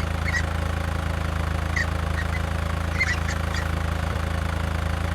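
Cartoon tractor engine idling steadily, with a few short, high duck calls over it.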